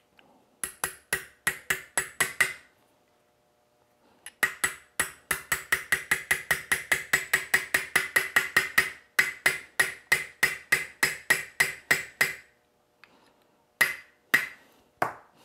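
Small hammer tapping a pin punch to drive the rear retaining pin into an S&W M&P pistol frame: a quick run of light metal taps, a pause, then a long, even run of about four taps a second, and a few final taps near the end.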